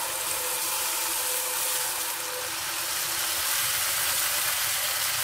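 Water poured into a hot wok of sautéed vegetables, hissing and sizzling steadily; the hiss starts suddenly as the water hits the pan. This is the water for the upma going in before the semolina.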